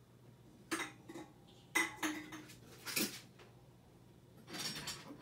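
Metal tools and shock-absorber parts clinking and knocking together: a series of separate sharp clinks, a couple with a brief ring, while a motorcycle rear shock's lock nut is being worked loose.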